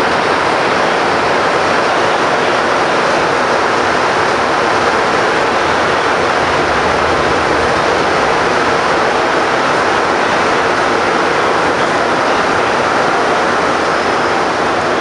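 Montreal Métro MR-73 rubber-tyred train running between stations, heard from inside the car: a steady, loud running noise of the tyres on the track and the car in motion.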